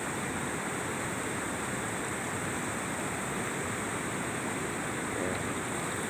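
Water pouring and splashing through the mesh of a bamboo-framed lift net as it is hauled up out of a river, a steady rushing sound.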